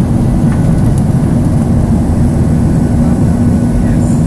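Steady engine and airflow drone of a Boeing 737-800 in flight, heard inside the cabin, with its CFM56-7B turbofans giving a steady low hum under the rushing noise.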